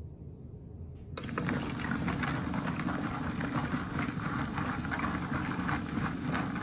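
National Geographic rock tumbler starting up about a second in: the barrel begins turning and the marble rocks inside tumble with a steady, dense rattle over the motor's hum.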